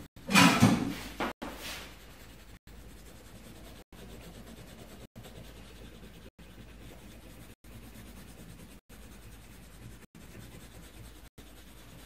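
Colored pencil shading on paper: a steady faint scratching and rubbing, cut by brief dropouts about every second and a quarter. About half a second in, a louder burst of noise lasts about a second.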